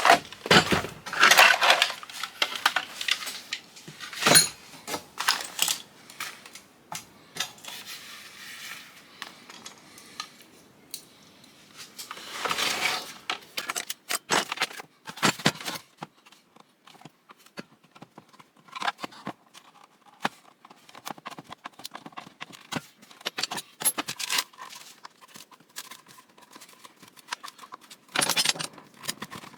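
Irregular clattering, clicks and knocks of hand tools against the metal and plastic parts of an old Cuisinart food processor as it is taken apart, with a few louder clatters along the way.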